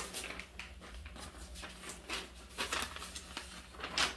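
Clear plastic packaging bag around a baby bouncer crinkling and rustling in irregular bursts as hands handle it, with a sharper crinkle near the end.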